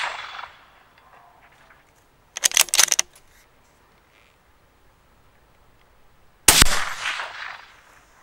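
Sabatti Rover bolt-action rifle in .223 Remington fired once about six and a half seconds in, a sharp crack that trails off over a second or so. Earlier comes a quick run of sharp clicks as the bolt is worked between shots, and at the very start the fading tail of the previous shot.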